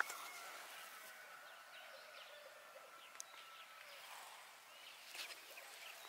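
A brief sharp sound right at the start, then faint outdoor background with distant small birds chirping and a thin steady high tone that stops about four seconds in.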